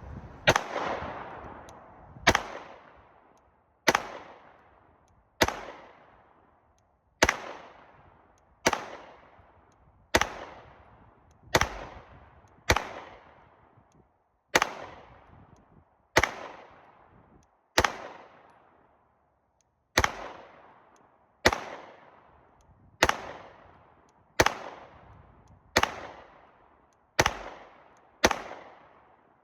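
Glock 19X 9mm pistol fitted with a compensator firing slow aimed shots, about twenty in all at roughly one every second and a half, each crack followed by a fading echo. The pistol cycles without a stoppage.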